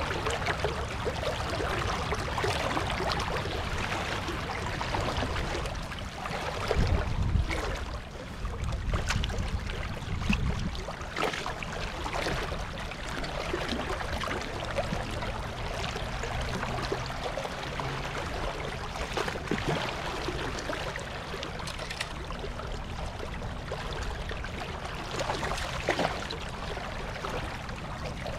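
Shallow river current running steadily around wading legs, with splashing as a landed steelhead thrashes in the water at the angler's feet.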